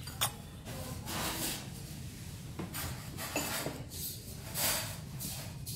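Quiet room background with soft rubbing noises and one sharp click about a quarter second in, the sound of a handheld phone camera being moved over a dining table.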